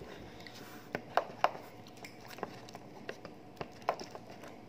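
Plastic spoon tapping and scraping in a small plastic cup of blue slime mixture: a handful of irregular light clicks and knocks, the strongest two close together about a second and a half in.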